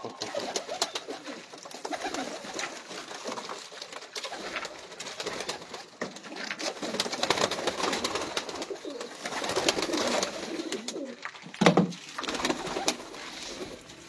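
Domestic pigeons cooing in a small enclosed loft, with wing flaps and scratchy clicks among them. A single loud knock comes near the end.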